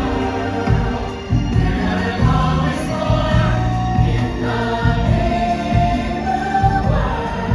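Music with a choir singing over a steady beat.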